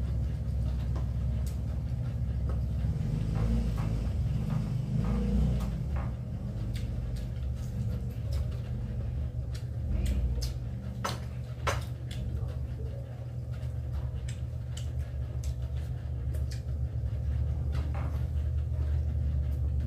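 People eating at a table: scattered light clicks and taps of plates, bowls and spoons as food is picked up by hand, over a steady low hum.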